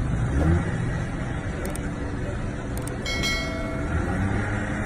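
Steady street traffic noise with a car engine running. Two short clicks, a little under two and about three seconds in, then a bright chime that rings out for about half a second: the sound effect of a subscribe-button animation.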